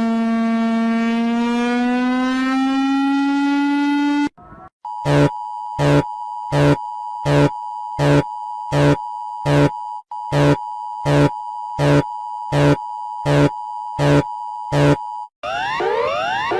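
Emergency alert alarm tones. First comes a buzzy electronic tone sliding slowly upward. About four seconds in, after a brief break, a steady two-tone drone starts, with a loud beep pulsing a little more than once a second. Near the end this gives way to a quick run of rising sweeps.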